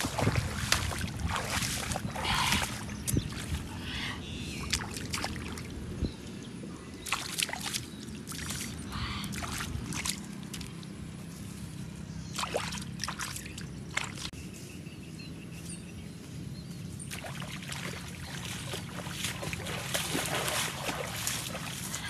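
Rustling through grass and splashing in shallow muddy water while fish are caught and handled by hand, with many short scuffs and slaps over a steady low hum.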